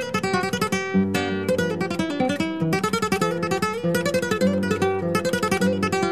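Background music with fast, densely played notes in a quick, even rhythm.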